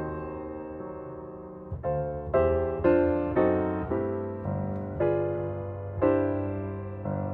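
Background piano music: a held chord that fades, then notes struck about twice a second, each dying away.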